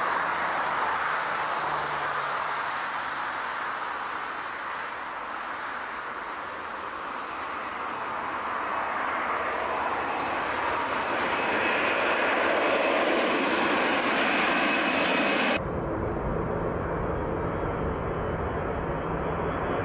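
Jet engines of a twin-engined Air Berlin airliner at takeoff power, dipping and then swelling to their loudest as the jet climbs overhead. About three-quarters of the way through, the sound cuts abruptly to the duller, deeper rumble of an Airbus A300 on approach.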